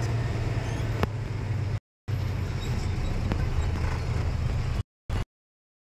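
A truck's engine rumbling low, with road noise, heard from inside the cab while driving. Two sharp clicks come through, one about a second in and one past the middle. The sound cuts out abruptly twice and stops about a second before the end.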